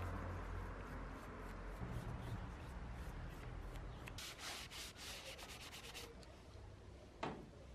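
Rubbing and scrubbing strokes on a steel axe head, with a quick run of about five strokes a second starting about four seconds in, then a single sharp click near the end.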